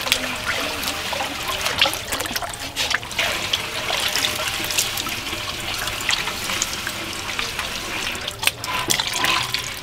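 Raw pig intestines being handled and washed by hand: wet squelching and slapping with water trickling and dripping, plus scattered short wet clicks.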